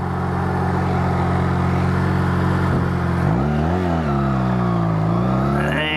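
Honda Rebel 250 motorcycle engine idling steadily, then revving as the bike pulls away from a stop, its pitch rising, easing back and rising again near the end.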